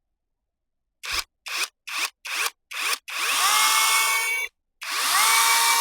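Mellif 8-inch battery pole saw (cordless mini chainsaw) triggered in five short blips, then run twice for a second or so, each time spinning up to a steady whine with the chain running. The saw is being run on fresh bar oil to check that the oiler pumps it through to the chain.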